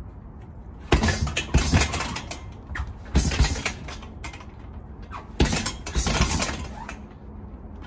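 Close-range strikes on a hanging heavy punching bag, in three quick flurries of sharp thumps: about a second in, about three seconds in, and about five and a half seconds in.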